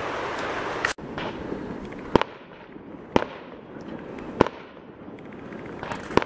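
Fireworks going off: four sharp bangs about a second apart, with fainter pops in between.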